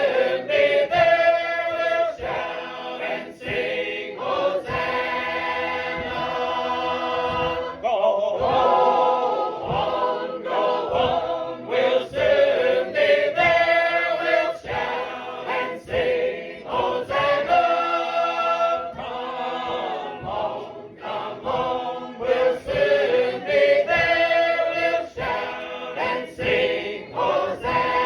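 A group of voices singing a hymn together in harmony, unaccompanied.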